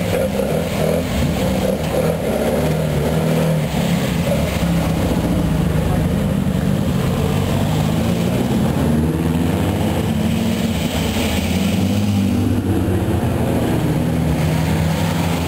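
Classic Alfa Romeo cars' engines running at low speed as the cars pull past one after another, a steady low engine note throughout.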